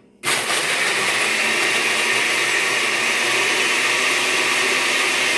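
Countertop blender with a stainless-steel jar switched on about a quarter second in and running steadily at full speed, crushing ice into the liquid cocktail mix.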